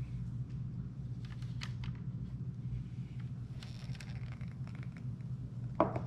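A heavy glass bowl of cream handled on a granite counter and slid off a kitchen scale: a few light taps and scrapes, then one sharp knock near the end as the glass meets the stone. A steady low hum runs underneath throughout.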